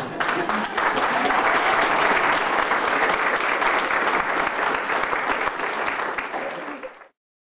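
Audience applauding, many hands clapping, which cuts off suddenly near the end.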